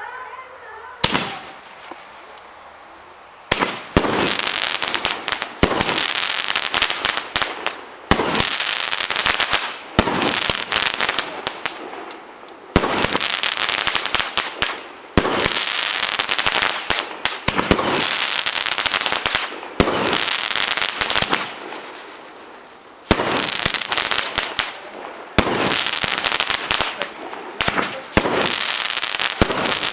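16-shot firework cake firing shot after shot. Each shot is a sharp report followed by a few seconds of dense crackling, repeating about every two to three seconds after a quiet start.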